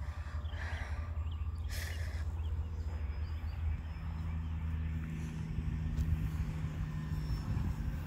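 Wind buffeting the microphone as a steady low rumble. About halfway through, a faint steady hum joins it: the drone of the RC plane's motor overhead. There is a brief hiss near two seconds in.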